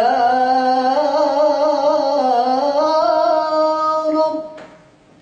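A young man singing an Arabic religious ibtihal unaccompanied: one long, drawn-out phrase with wavering ornaments that climbs slightly in pitch and ends about four and a half seconds in.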